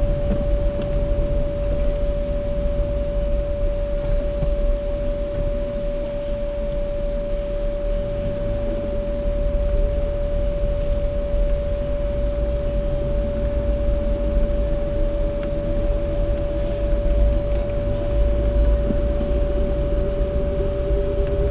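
Continuous low rumble of a car driving through town streets, with a steady high-pitched tone holding one pitch over it.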